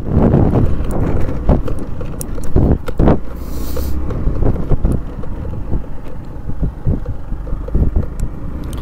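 Motor scooter ride heard from the handlebars: wind rushing over the microphone and the scooter's running noise, with irregular knocks and rattles as it rides over a bumpy dirt track.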